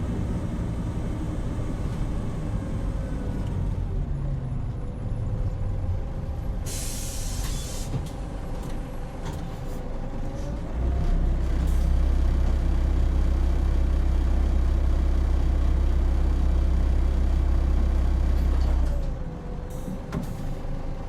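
Hino Rainbow HR city bus heard from inside: the diesel engine eases off, a short air-brake hiss comes about seven seconds in, then a steady low engine drone runs from about eleven to nineteen seconds before dropping away.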